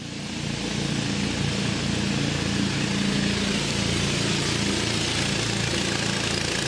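Small engines of motorised wooden river boats running steadily as the boats approach, growing louder over about the first second, with a hiss of water spray.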